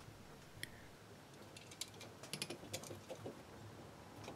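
Faint, scattered light clicks and scratches of steel digital calipers set against a blued steel base plate, the jaw tip scribing a marking-out line, with a cluster of ticks in the middle.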